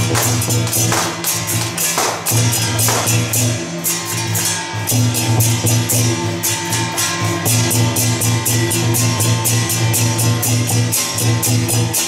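Temple procession music with a steady beat and quick, even metallic percussion strokes, played through loudspeakers on an LED-lit palanquin cart.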